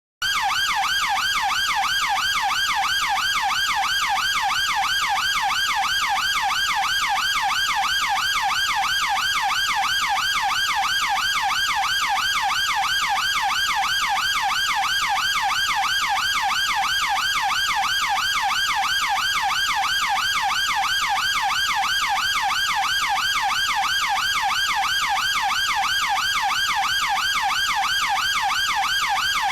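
Chinese police car electronic siren in a fast yelp, its pitch sweeping rapidly up and down in an even, unbroken rhythm. It starts abruptly just after a brief silence.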